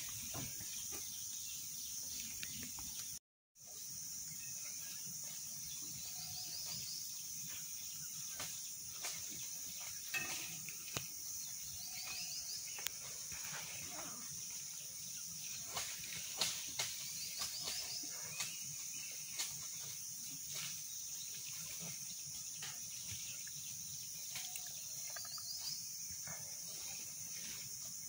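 Steady high-pitched insect chorus, with scattered short clicks and snaps over it. The sound cuts out completely for a moment a little over three seconds in.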